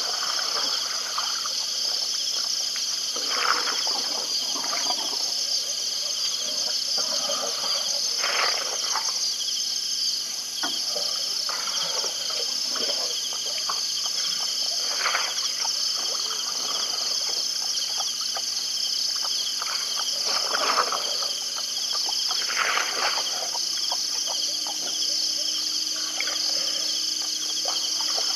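Night chorus at a waterhole: a steady, high, pulsing trill of insects, with frogs giving short calls every few seconds.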